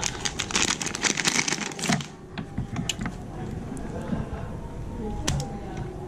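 A white USB charging cable being handled: a dense burst of rapid clicking and rustling for about two seconds, then scattered small clicks and one sharper click about five seconds in.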